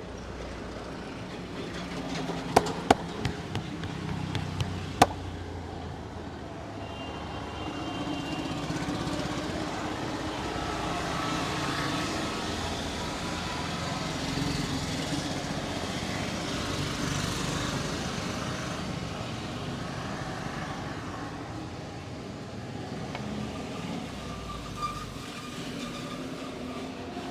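Steady street traffic noise with a cluster of sharp clicks between about two and a half and five seconds in, three of them much louder than the rest.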